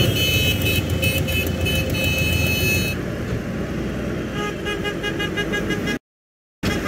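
Tractor horns honking over the low running of engines: several long blasts, then a run of quick short beeps. The sound cuts out abruptly near the end.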